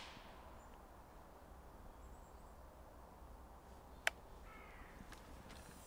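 Faint, quiet woodland ambience. A single sharp click comes about four seconds in, followed by a brief bird call.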